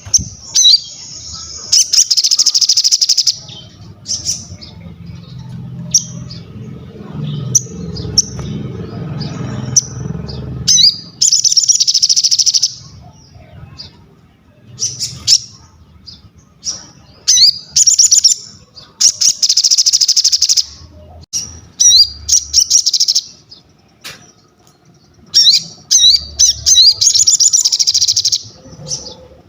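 A sogon songbird singing in full voice: loud, sharp upward-sweeping chirps broken by several dense, buzzy trills of one to three seconds each. A low rumble runs under the song for several seconds in the first third.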